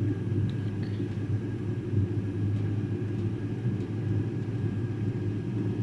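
Diesel air heater running steadily: its burner and combustion-air fan give a constant low hum with a faint steady high whine.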